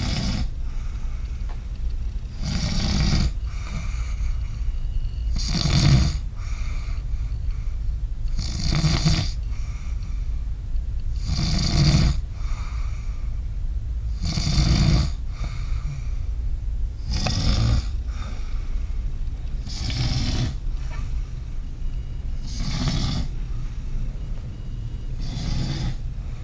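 A sleeper snoring in a slow, regular rhythm, one loud snore about every three seconds, over a steady low hum.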